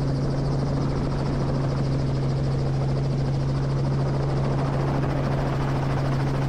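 Helicopter running steadily, a constant engine hum with fast rotor flutter.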